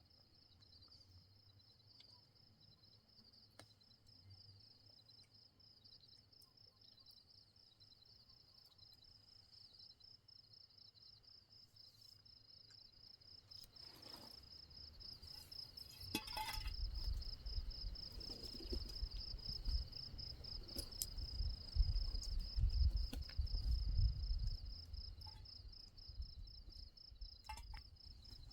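Crickets chirring in a steady, rapid pulsing trill. From about halfway a low rumble builds up under it and is loudest near the end, with a few faint clicks.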